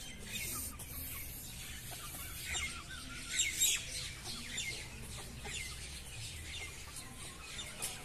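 Chickens clucking, with many short, high calls that come thickest about three seconds in.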